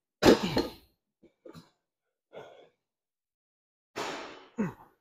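A man's effortful grunts and hard exhales while curling a heavy weight on a preacher curl machine. There is a loud grunt at the start, a few short breaths, then a long forceful exhale and a short grunt near the end.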